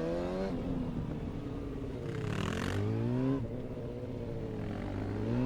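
Suzuki GSX-R750's inline-four engine being blipped and throttled through tight gymkhana turns, its revs climbing and falling several times, with a sharp drop-off about three seconds in.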